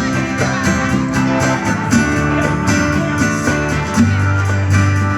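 Live band playing an instrumental stretch without vocals, guitar to the fore over bass notes.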